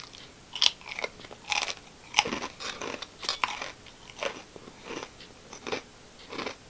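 Crisp shrimp-flavoured crackers being bitten and chewed: an irregular string of sharp crunches, a few every second.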